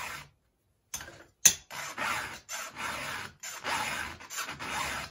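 Round chainsaw file rasping across a saw chain's cutter teeth in a run of push strokes, with a short pause near the start and a sharp click about a second and a half in. The file is angled down into the gullet to cut back the hook on worn cutters.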